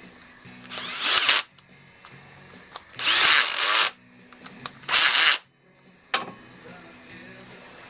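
Handheld electric drill run in three short bursts, its pitch rising as it spins up each time, opening out the bolt hole in the welded steel lug of a bearing housing. A single sharp click follows a little after the last burst.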